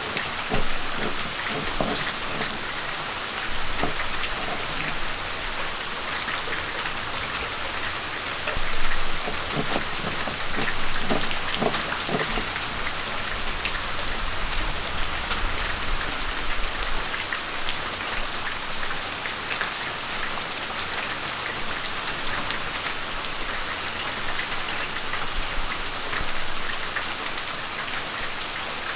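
Stone roller crushing and grinding sautéed pearl onions on a flat stone grinding slab, with scattered crunches and knocks over a steady hiss.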